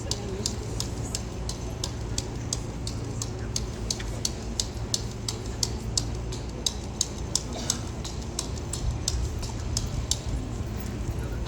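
A steady series of light, sharp clicks, about three to four a second, over a low steady hum.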